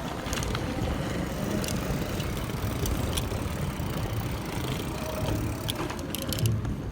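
Wind rushing over the microphone and tyres rumbling while riding a bicycle over rough, bumpy street, with scattered light clicks and rattles from the bike.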